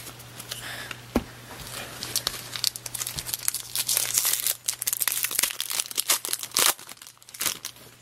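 A 2002 Bowman baseball card pack's foil wrapper being torn open and crinkled by hand: a dense run of crackles and rips, busiest in the middle and dying away near the end.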